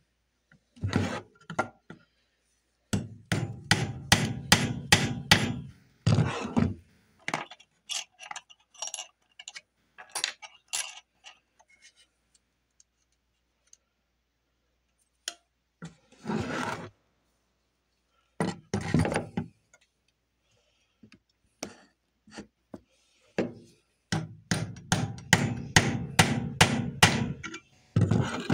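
Hammer tapping on steel nails at a wooden board, in quick runs of blows with pauses between: bent nails being straightened and driven in. There is a longer run of rapid taps near the end.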